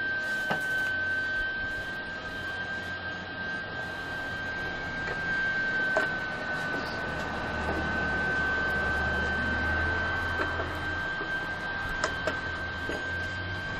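Steel chain links and locking pliers clinking a few times as they are handled and clamped. Underneath runs a steady high-pitched whine and a low hum.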